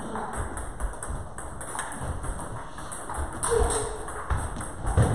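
Table tennis balls clicking off tables and bats, an irregular scatter of light taps, with a louder knock near the end.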